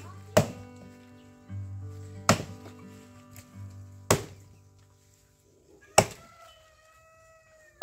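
Axe chopping into a felled tree trunk: four sharp strikes about two seconds apart.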